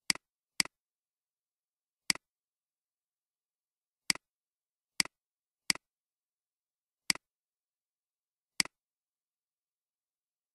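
Computer mouse clicks: eight separate clicks at irregular spacing, each a quick double snap of press and release.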